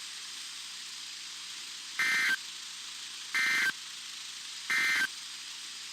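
Three short, identical two-tone data bursts about a second apart: the SAME (Specific Area Message Encoding) end-of-message code sent over NOAA Weather Radio, marking the end of the required weekly test. A steady faint radio hiss fills the gaps.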